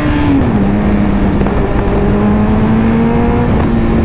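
Suzuki Hayabusa's inline-four engine running under the rider. Its pitch drops about half a second in, as the throttle eases, then holds steady at a cruising note.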